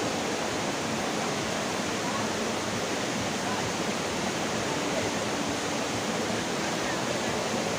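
Steady rushing of a waterfall, an even roar of falling water that does not let up.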